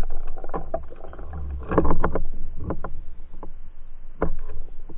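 Muffled underwater knocks and clicks over a low rumble as a pike strikes at a soft fishing lure rig, with a louder rush of noise about two seconds in.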